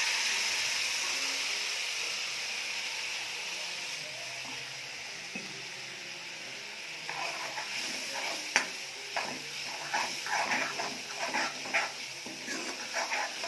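Frying masala in a kadhai hissing after a little water is added, the hiss fading gradually. From about halfway a metal ladle stirs the masala, with repeated clicks and scrapes against the pan, one sharp knock the loudest.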